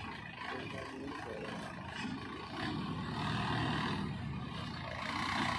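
Diesel engine running steadily, getting louder about two and a half seconds in.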